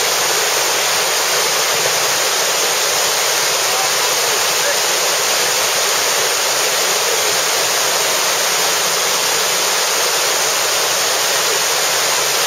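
Water pouring over a river weir: a steady, unbroken rush of white water at one level.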